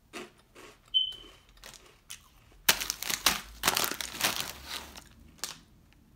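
Crinkly plastic chip bag being handled and crumpled: a dense rustle starts a little under three seconds in and lasts about two seconds, with one more short crinkle near the end. Before it come soft crunches of a Cheeto being chewed and a brief high squeak about a second in.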